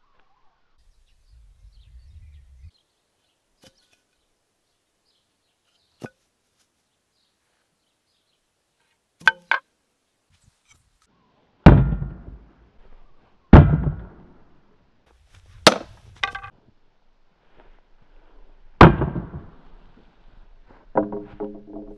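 Blows struck against a wooden round shield with an axe, beginning about nine seconds in: several heavy thuds on the wooden boards and a few sharper, ringing clangs, about half a dozen strikes in all. Near the end comes a short rattling ring.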